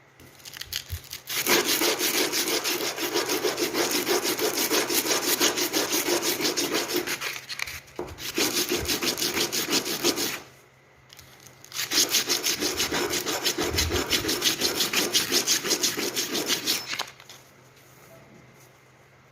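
A hand tool worked back and forth across wood in fast, even strokes, in three bouts with short pauses between them; the strokes stop a couple of seconds before the end.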